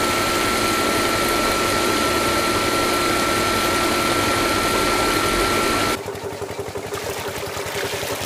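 Small electric water-pump motor running steadily with a constant high whine while its spray of water splashes over a toy tractor. About six seconds in this cuts off abruptly to the quieter, uneven sound of water being poured from a plastic bottle into a small concrete tank.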